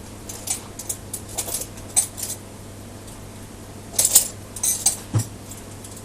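Metal hand tools and small metal parts clicking and clinking as pliers are handled against the rotator. Scattered light taps give way to a louder cluster of clinks about four seconds in.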